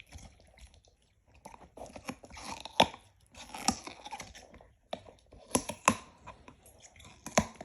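A dog making strange noises: irregular clicks and short crackling bursts, with a few louder sharp clicks among them.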